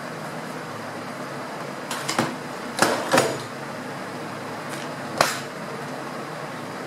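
Plastic storage boxes being shifted and set down on a tabletop: a short rattle followed by two louder knocks near the middle, then a single sharp click a couple of seconds later, over a steady background hum.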